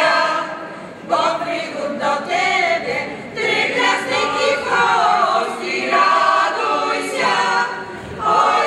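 Mixed choir of women's and men's voices singing a Polish Christmas carol (kolęda), phrase by phrase, with a short breath between phrases about every two seconds.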